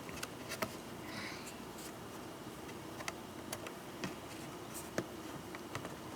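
Faint, scattered small clicks and a brief light scrape of a small screwdriver working the screws on a ThinkPad laptop's screen assembly.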